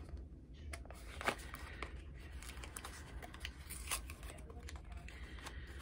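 Hands handling the nail polish packaging: rustling and crinkling with scattered light clicks and taps, the sharpest about a second in and again near four seconds, over a low steady hum.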